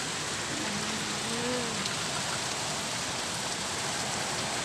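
Heavy storm rain pouring steadily, an even hiss of rain on surfaces.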